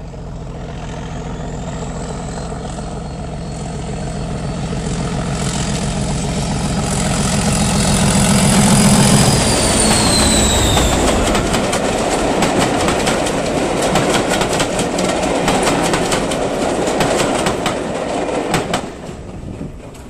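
Class 37 diesel locomotive approaching and passing close by, its English Electric V12 engine growing louder along with a high whistle that drops in pitch as it goes past about ten seconds in. The coaches then roll by with rapid, rhythmic clicking of wheels over the rail joints, which fades away near the end.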